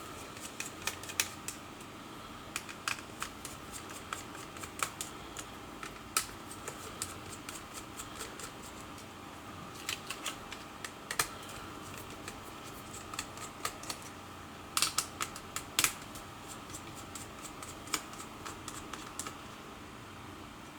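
Scattered small clicks and taps of a screwdriver and small metal parts being handled while the heatsink is removed from an Asus K551L laptop, with louder clusters of clicks about halfway and about three-quarters of the way through.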